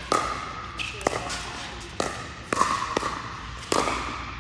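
Pickleball paddles striking a plastic ball in a fast rally, about six sharp pops, each echoing in a large indoor hall.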